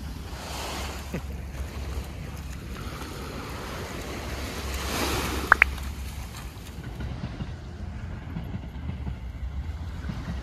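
Small waves washing onto a sandy beach, with wind rumbling on the microphone. The wash swells twice, and two short, high rising squeaks come in quick succession about halfway through.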